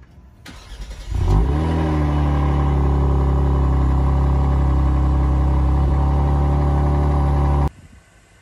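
Genesis G70 engine starting: it fires about a second in with a short flare, then settles into a loud, steady idle through the exhaust, which cuts off suddenly near the end.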